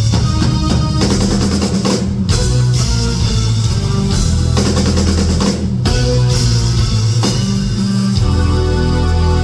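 Live rock music: an electric guitar and a drum kit playing together.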